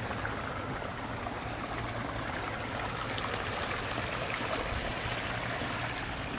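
Water running and splashing steadily into a garden pond.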